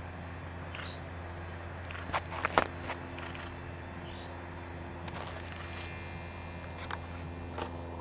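A steady low hum picked up by a camcorder's built-in microphone. About two seconds in comes a quick cluster of sharp clicks and knocks, the loudest sound here, and a few fainter single ticks follow later.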